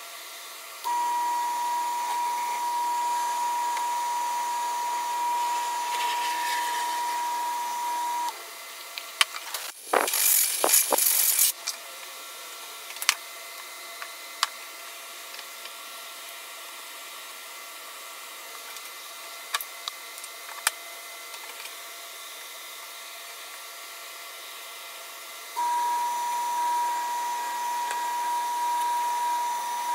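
Wood lathe running with a steady high whine while sandpaper is held to the spinning bowl. The lathe stops about eight seconds in, a loud hiss follows for about a second and a half, then a few sharp clicks. Near the end the lathe starts up again.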